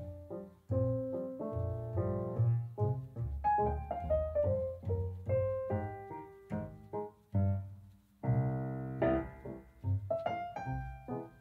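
Solo piano background music: a gentle melody of single notes and soft chords, each note struck and left to fade, with a falling run of notes a few seconds in.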